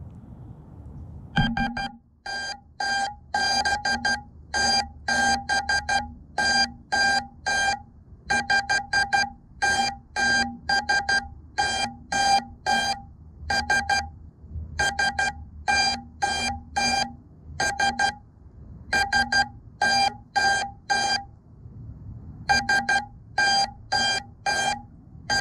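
FPV quadcopter's onboard buzzer beeping in repeated quick runs of short, high-pitched beeps with brief gaps, starting about a second in. It is the lost-model beeper sounding after the quad's ELRS radio link failsafed and it came down.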